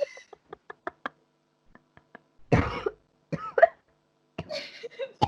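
A person coughing hard in a fit, three loud coughs in the second half, while short of breath. A few faint short clicks come in the first second.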